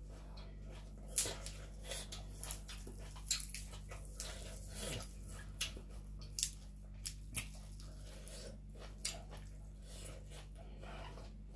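Close-miked chewing and lip smacks as a mouthful of fresh herbs and vegetables is eaten: a run of crisp, irregular clicks and smacks, thinning out in the last few seconds, over a steady low electrical hum.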